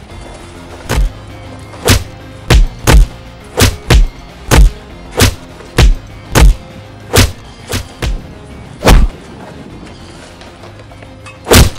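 A run of about fifteen heavy thuds at uneven intervals, punches and kicks landing in a beating, over steady background music. One more thud comes near the end.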